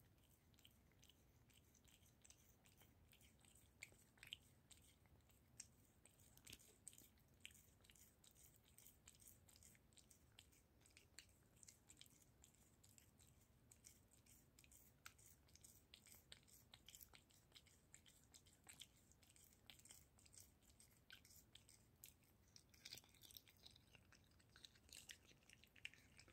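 Domestic tabby cat eating a sausage held in front of its mouth: faint, irregular wet clicks of chewing and licking, several a second, coming thicker near the end.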